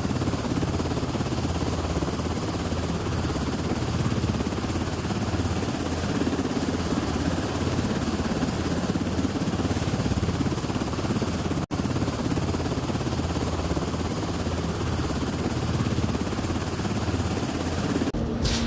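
Steady mechanical rumble, like heavy machinery or an engine running, with a brief gap about twelve seconds in.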